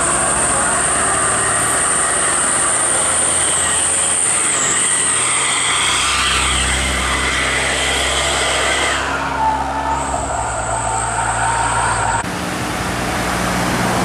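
Diesel engines of medium tour buses driving past on a hill road, the engine rumble swelling as one bus passes close by around the middle. A steady high-pitched whine runs over it, and the sound changes abruptly near the end.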